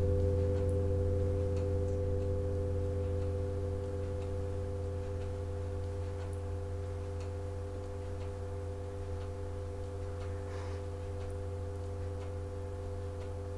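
A clock ticking about once a second over a low, steady ringing tone of several notes that slowly fades.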